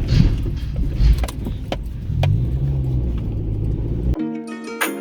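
Car driving, heard from inside the cabin: a steady low engine and road rumble with scattered light clicks and rattles. It cuts off suddenly about four seconds in, replaced by music.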